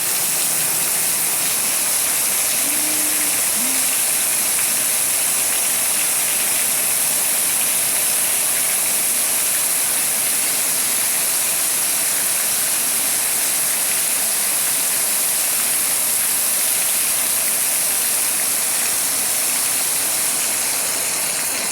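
Rain pouring steadily: a loud, even hiss of falling water with no break.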